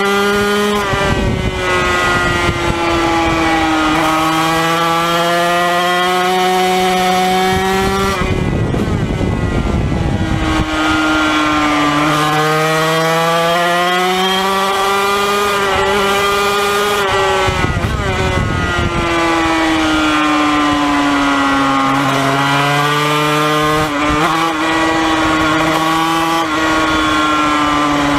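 Yamaha TZ250 racing motorcycle's 250 cc two-stroke twin revving hard on track, its high buzzing note climbing and falling with the throttle. Twice, about 8 and 18 seconds in, the clean note breaks up into a rougher, noisier rasp for a second or two before the engine pulls again.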